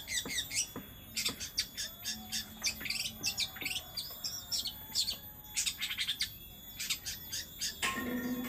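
Songbirds singing in rapid, overlapping bursts of short high chirps, trills and squawks. Near the end a lower voice-like sound begins.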